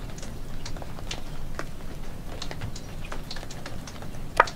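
Sharp, unevenly spaced ticks, about two a second, with one louder click near the end, coming from a storm drain. The man takes them for a green tree frog calling; the child says it is water dripping.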